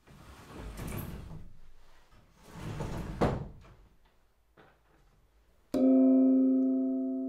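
A paper-covered fusuma sliding door is slid shut along its wooden track in two pushes, ending with a knock as it meets the door post. Near the end a single bell-like chime is struck and rings on, slowly fading.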